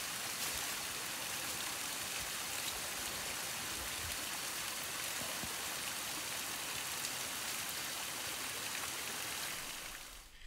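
Small stream running down a rocky ledge in a steady, even rush of water, fading out near the end.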